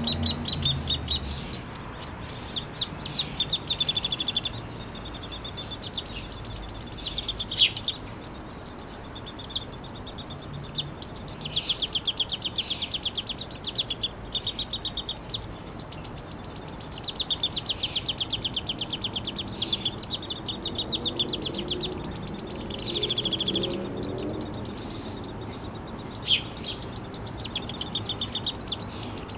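Downy woodpecker nestling begging while its father feeds it: rapid, high-pitched chattering calls that come in bursts of a few seconds with short pauses between.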